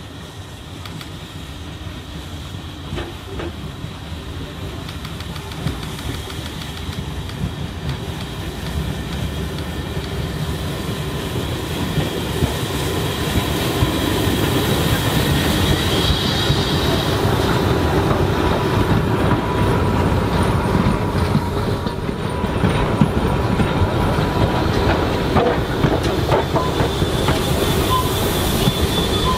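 A train rolling along the track, its wheels clattering on the rails with some squealing, growing louder over the first half and then running steadily close by.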